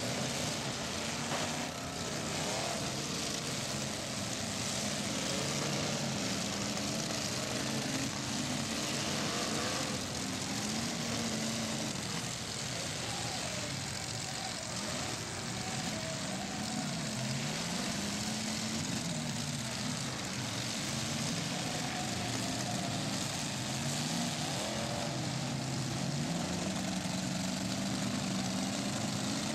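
Several demolition-derby cars' engines revving up and falling back unevenly over a steady noisy roar, with an occasional knock as the cars ram each other.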